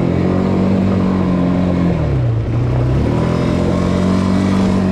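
ATV engine running under throttle: its pitch holds high, drops about two seconds in as the throttle eases, then climbs again a second later.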